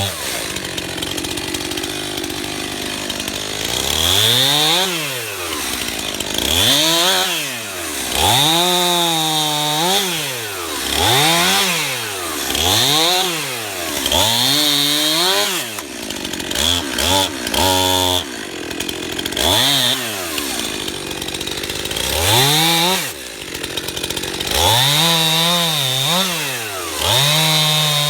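Stihl MS291 two-stroke chainsaw bucking pine logs into short pieces. About ten quick throttle bursts: each time the engine revs up, drops slightly in pitch as the chain bites into the wood, then falls back toward idle.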